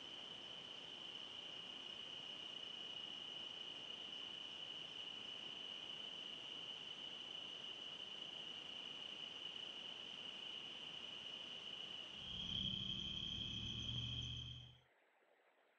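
Crickets chirping at night in a steady, unbroken chorus on one high pitch. About twelve seconds in, a low rumble joins for a couple of seconds, then both cut off suddenly near the end.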